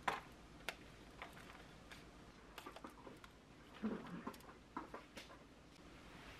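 Chopped green onion, onion and chili peppers being pushed off a knife into a plastic container of boiled eggs: scattered light taps and clicks as the pieces drop and the blade touches the container, with a cluster of soft knocks about four seconds in.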